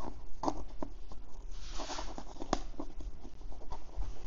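Fingers picking and scratching at the edge of a cardboard box to open it: light scratches, small clicks and rustles, with a longer rasp about two seconds in.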